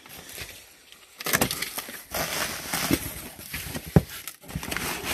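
A cardboard box and plastic-wrapped packs being handled and opened: rustling and crinkling, with several sharp clicks and knocks, the sharpest about four seconds in.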